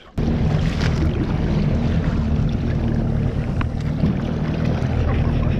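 Small boat's outboard motor running steadily as the boat motors across choppy water, with a low hum, and wind rumbling on the microphone.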